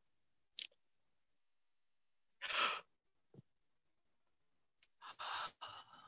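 A person breathing audibly: a short sharp in-breath, a breathy out-breath, then a longer open-mouthed yawning sigh near the end.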